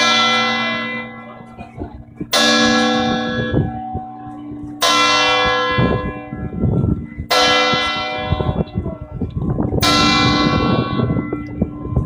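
Large bronze church bells in the belfry of the Leaning Tower of Pisa ringing close up: five loud strokes about two and a half seconds apart, each ringing on and slowly fading into the next.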